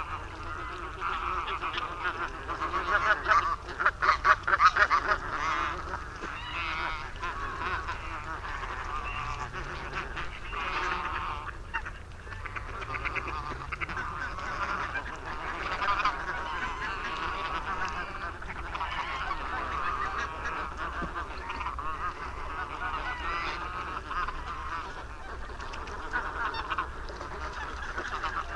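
A large feeding flock of geese, barnacle geese among them, calling continuously in dense, overlapping honking chatter, loudest about four seconds in.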